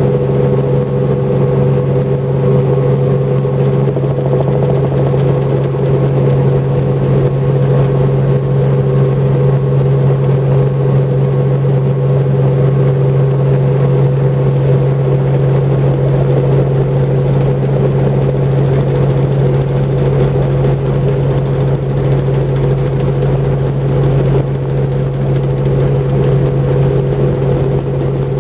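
Helicopter engine and rotors running steadily in flight, heard from inside the cabin as a loud, even hum that does not change.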